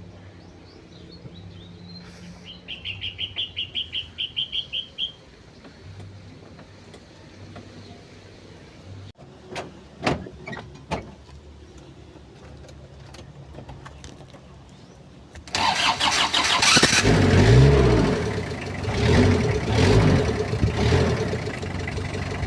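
Mazda R2 diesel engine cranked and starting about fifteen seconds in, briefly revving and then running. Earlier come a rapid series of electronic beeps and a few sharp clicks.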